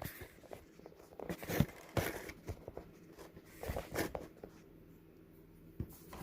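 Handling noise from small plastic tripod parts being turned over and worked on: irregular light clicks, taps and rustles, busiest in the first four seconds, with a single knock near the end.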